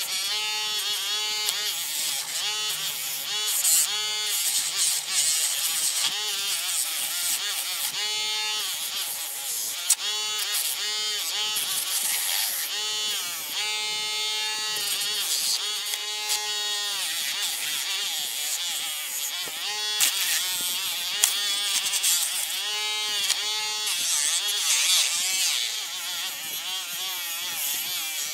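Small 12 V DC motor of a homemade mini wood lathe running with a high buzz. Its pitch sags and recovers again and again as the load changes, over a steady high hiss from the workpiece being cut, with a few sharp clicks.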